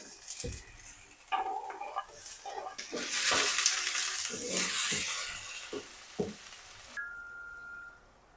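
Butter sizzling and fizzing in a small pot as it browns, stirred with a utensil that clinks and scrapes against the pot a few times. The sizzle swells about three seconds in and dies down near the end.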